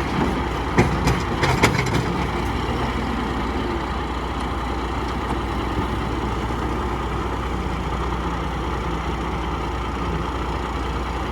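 Heavy diesel engine running steadily, with a few sharp knocks in the first two seconds.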